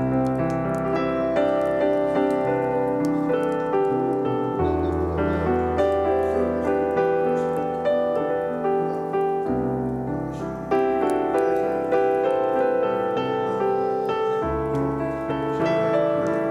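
Background piano music: a slow run of notes over held bass notes that change about every five seconds.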